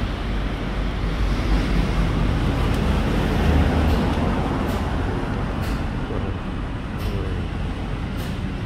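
Steady low rumbling background noise, with a kitchen knife chopping on a cutting board four times, about once a second, in the second half.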